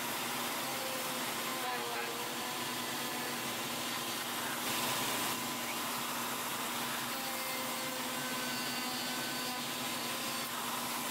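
Router table's motor running steadily with a half-inch straight bit milling a slot into a wooden block as it is pushed along the fence.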